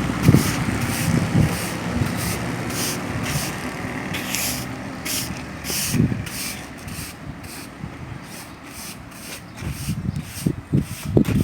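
Construction-site work noise: a rhythmic scraping hiss repeating about twice a second, with a few heavy thuds at the start, about six seconds in, and near the end.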